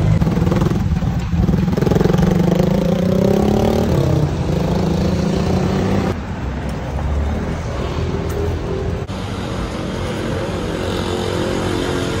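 Motor vehicle engine running and revving, its pitch rising and falling in the first few seconds, with abrupt cuts to different engine sound about six and nine seconds in.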